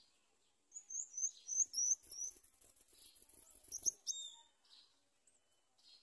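Nestling birds begging: a quick run of thin, high-pitched chirps that starts about a second in and stops at about four seconds, ending with one short lower note.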